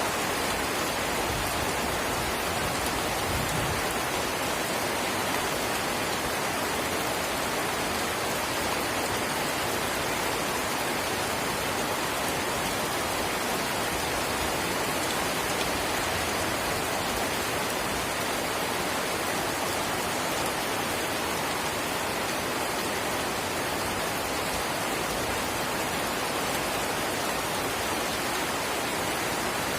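Light drizzle rain falling steadily, an even hiss of fine drops with no single drops standing out.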